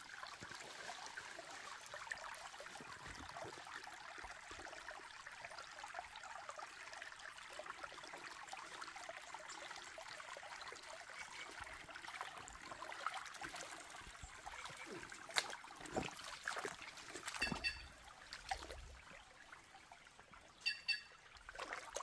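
Shallow creek water trickling and babbling over stones, a soft steady sound that eases off about three-quarters of the way through. A few sharp clicks and some short high chirps come near the end.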